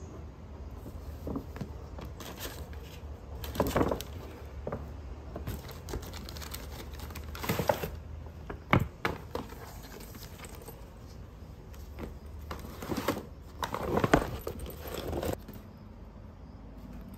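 A paper shopping bag and tissue paper rustling and crinkling in several bursts as items are lifted out, with one sharp tap about halfway through.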